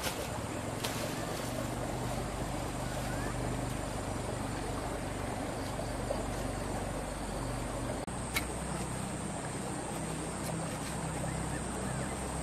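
Steady outdoor background noise with a low hum and a thin, high steady whine that grows louder about eight seconds in. There are a couple of faint clicks.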